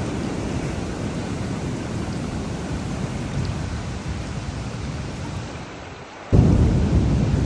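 Heavy rain with a continuous deep rumble of thunder. The sound thins briefly about six seconds in, then a louder burst of thunder starts suddenly and rolls on.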